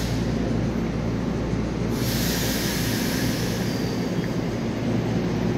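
Twelve-car EMU3000 electric multiple unit pulling out of the station and rolling past, with a steady low rumble of wheels and running gear. A burst of hissing starts about two seconds in and fades over the next two seconds.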